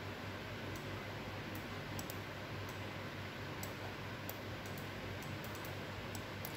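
Faint, irregular computer mouse clicks over a steady low hum.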